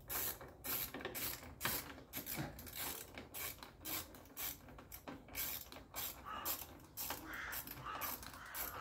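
Ratchet wrench clicking in quick, even strokes as a bolt is tightened.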